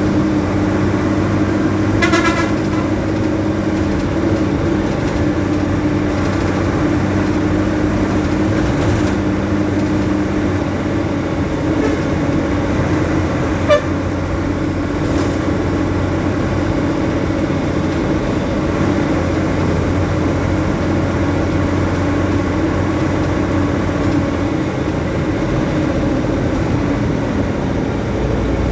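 Road traffic with a vehicle engine running steadily. A short horn toot sounds about two seconds in, and a single sharp click comes about halfway through.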